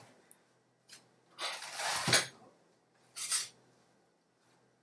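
Brief kitchen handling noises as a knife and cutting board are fetched: a rustling clatter of about a second with a knock near its end, then a shorter rustle a little after three seconds.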